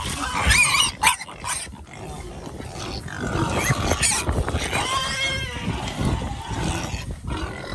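Pigs grunting and squealing while they compete for thrown bread, with a short high squeal just under a second in and a longer wavering one about five seconds in.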